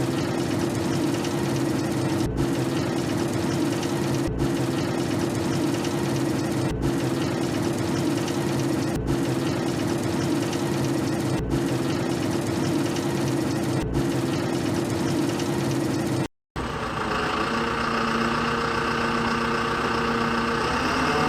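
Small electric motor and gearbox of a radio-controlled model vehicle running steadily. It cuts off abruptly near the end, and a different sound with several steady tones follows.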